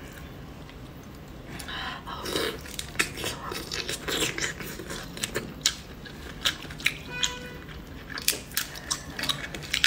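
Close-up sounds of eating whole raw red shrimp: wet slurping and chewing, and the crackle of shrimp shells being pulled apart, heard as many sharp irregular clicks from about two seconds in.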